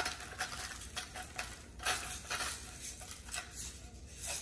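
Hand-held grinder cranking coarse salt: gritty crunches with each twist, coming in scattered strokes that grow sparser and fainter.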